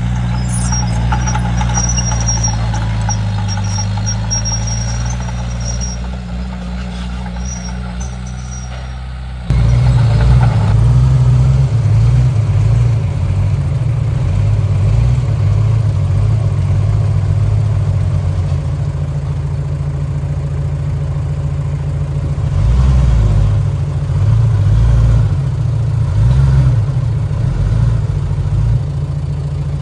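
Komatsu D31P crawler bulldozer's diesel engine running under load. It jumps suddenly louder about ten seconds in and then rises and falls in pitch and level as the dozer works.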